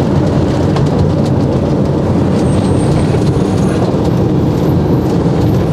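Motorhome driving along a road: steady engine and tyre noise, with a faint high whine about halfway through.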